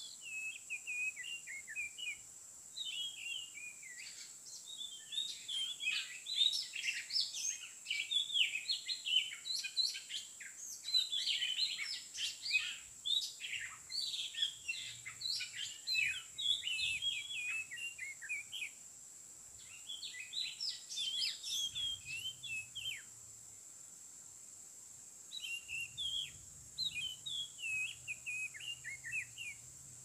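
Oriental magpie-robin (kacer) singing a varied song of quick whistled phrases, pausing for about two seconds a little past twenty seconds in, then resuming.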